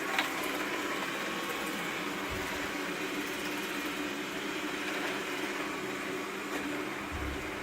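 Xiaomi Mi robot vacuum cleaner running steadily while cleaning, a constant whirring hiss from its suction fan and brushes with a low hum, and a short click just after the start.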